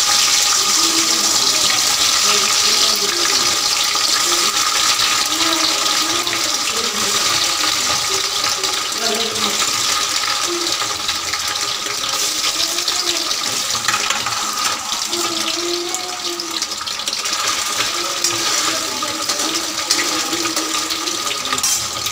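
Diced hard-boiled eggs frying in hot oil in a kadhai: a loud, steady sizzle that eases slightly in the second half.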